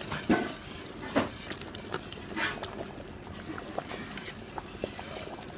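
Wire whisk stirring a thick, bubbling mushroom cream sauce in a metal pot: wet sloshing with a few sharp clicks as the whisk hits the side of the pot.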